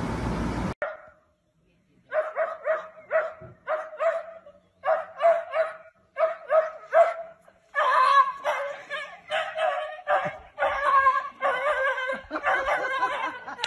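Small dachshund barking in short high yaps, about three a second. About halfway through the barking turns faster and almost continuous.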